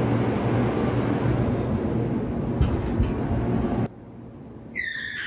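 Amusement park ride running with a loud, steady rumble and low hum, which cuts off abruptly about four seconds in. A short, high, slightly falling squeal follows near the end.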